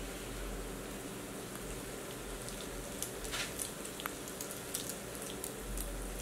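Hot oil sizzling as egg-batter-coated chiles rellenos fry in a pan, with scattered sharp crackles and pops that come more often from about three seconds in.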